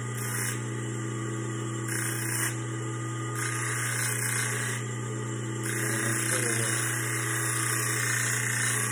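Bench grinder motor running with a steady hum while a small stainless-steel blank is pressed to the wheel four times, each contact a hissing grind. The first two are brief, and the last starts about halfway through and lasts longest. The grinding takes the sharpness off the blank's edges.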